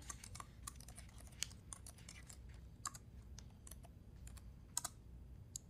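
Faint typing on a computer keyboard: a string of irregular key clicks, a few of them louder than the rest.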